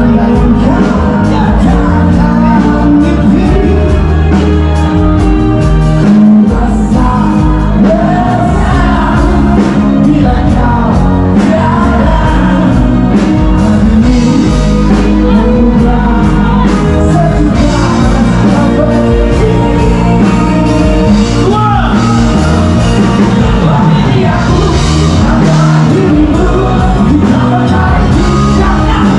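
Loud music with a singing voice over a steady, heavy bass line, played in a DJ set.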